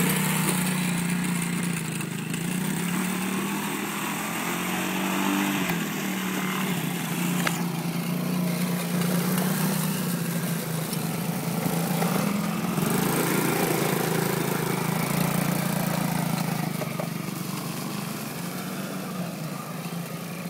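Small engine of a youth quad (ATV) running while the quad circles through mud, its pitch rising and falling with the throttle. It grows fainter near the end as the quad pulls away.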